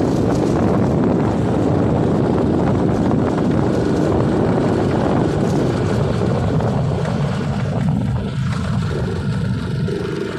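A vehicle in motion with a steady rush of engine, road and wind noise; it eases somewhat about seven or eight seconds in.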